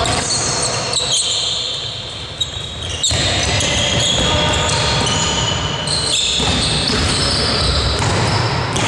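A basketball dribbled on a sports-hall floor during play, with sharp knocks of the ball and short high squeaks of sneakers on the court, echoing in the hall.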